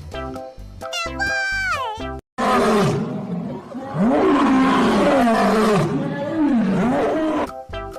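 Cheerful children's music with a falling glide, then, after a brief drop-out, a long animal-roar sound effect of about five seconds whose pitch swoops down and up several times.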